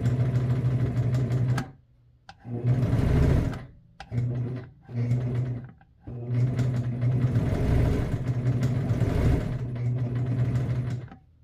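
Electric sewing machine running under foot-pedal control, stopping and restarting four times in short runs, the last run the longest at about five seconds.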